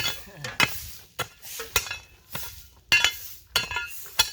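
Metal hand tools, such as shovels and crowbars, striking and scraping stones and gravel during roadwork. The sharp, ringing clinks come irregularly, about two a second.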